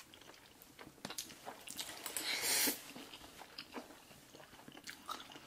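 Close-up wet chewing and mouth clicks of people eating spaghetti, with one short, louder slurp of noodles a little over two seconds in.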